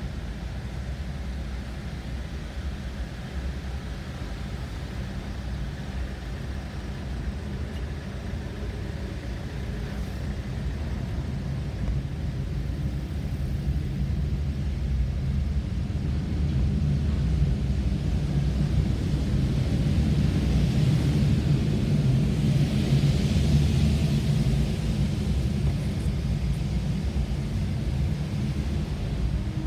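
Low, steady rumble of car engines and tyres on a ferry's enclosed car deck, heard from inside the cabin of a car creeping forward in a queue; it grows louder about halfway through.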